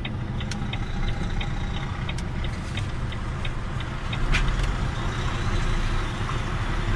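Truck's diesel engine idling, heard in the cab, with a rapid regular ticking, about three ticks a second, that stops about three seconds in, and a single sharp click a little later.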